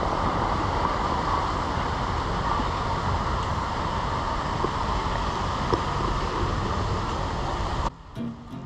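Steady wind noise on the microphone mixed with small waves washing onto a pebble beach. It cuts off suddenly near the end, and acoustic guitar music comes in.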